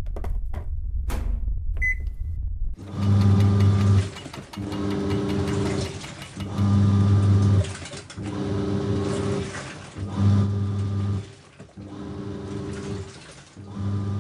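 Washing machine starting its wash. First a low rumble with a few clicks and one short beep about two seconds in, then the motor churns the drum back and forth in alternating spells of about a second to a second and a half, each a steady hum.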